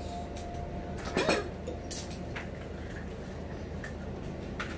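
Scattered light taps and clinks of small hard objects, with one louder brief sound about a second in, over a steady low hum.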